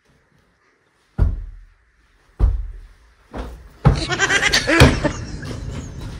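Heavy thuds of foam sofa cushions striking a person: three single blows about a second apart, then a rapid flurry of blows from about four seconds in, with voices yelling over them.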